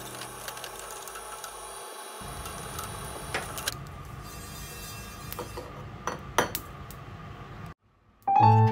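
Mustard seeds and other whole spices being dry-roasted in a pan, rattling and scraping as they are stirred with a spatula, with scattered small sharp clicks. Near the end there is a short break, then piano-like music begins.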